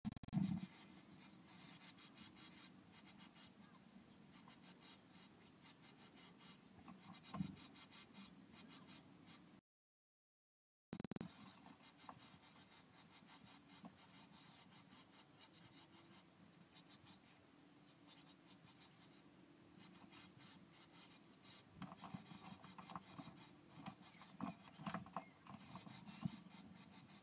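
Faint scratching and rustling of blue tit chicks shifting about in the moss and feather nest lining inside the nest box, with a few soft bumps against the box. The sound breaks off for about a second before the middle.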